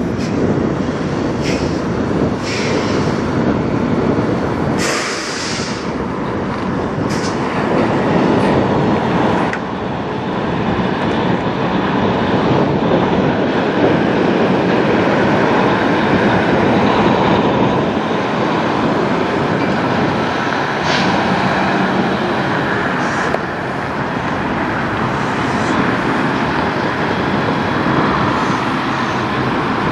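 Kenworth tractor-trailer's diesel engine running steadily as the semi truck rolls slowly across a paved lot and passes close by. A few brief high-pitched sounds stand out in the first ten seconds.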